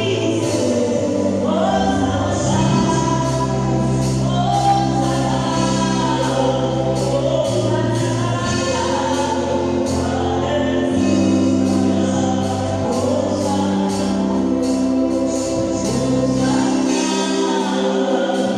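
Gospel choir singing over a band with bass, keyboard and a steady drum beat.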